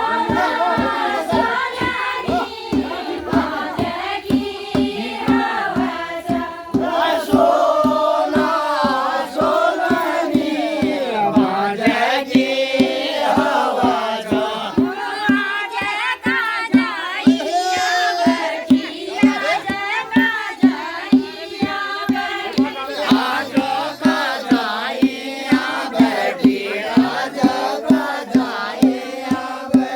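A group of voices singing a Pahari chanchari folk song together, over a drum beaten about twice a second. The drumbeats stand out more in the second half.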